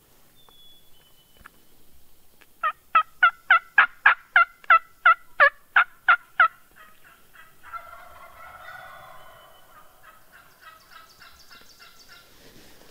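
Turkey call run in a loud series of about a dozen yelps, roughly three a second, calling to draw an answer from a tom. About a second after the yelps stop, a Merriam's wild turkey gobbles faintly in the distance.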